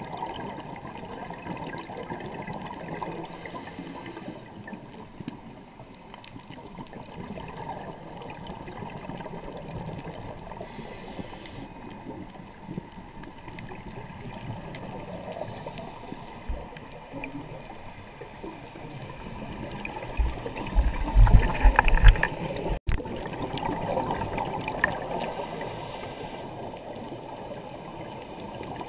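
Muffled underwater noise from a scuba dive, with a diver's regulator breathing: a short hiss every several seconds, and a loud burble of exhaled bubbles near the camera about two-thirds of the way through.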